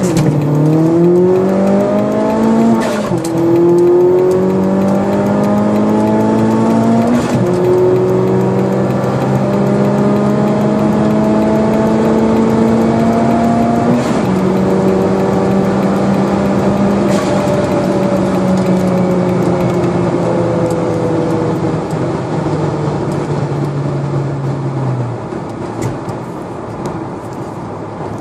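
Turbocharged 1.8-litre 20-valve four-cylinder engine of a Seat Leon under full-throttle acceleration, its pitch climbing through the gears. Quick upshifts come at about three, seven and fourteen seconds, each pull longer than the last. After the last one it holds a long pull in a high gear, and its note drops away about three seconds before the end.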